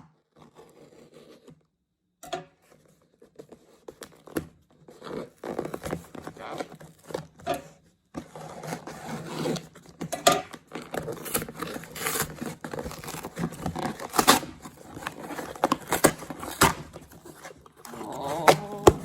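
A parcel being opened by hand: tearing, scraping and rustling of packaging with many sharp clicks and knocks, sparse at first and busier and louder from about eight seconds in.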